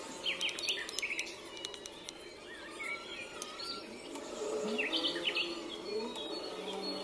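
Birds chirping and calling in the background, many short quick chirps overlapping with some lower gliding calls, with a few faint clicks in the first second or so.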